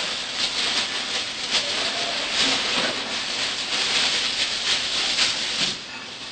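Tissue paper rustling and crinkling as it is handled and lifted out of a box, stopping shortly before the end.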